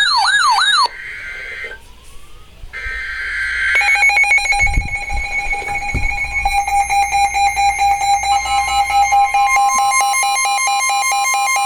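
Emergency Alert System broadcast starting a new alert: a buzzy burst of the alert's data header, then from about four seconds in a steady electronic attention tone, with a second tone joining a few seconds later. It opens with the end of an excited shout.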